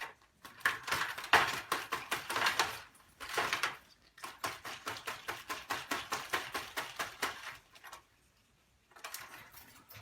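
Pet parrot flapping its wings hard, a fast run of wingbeats in bursts that break off briefly about four seconds in and again near the end.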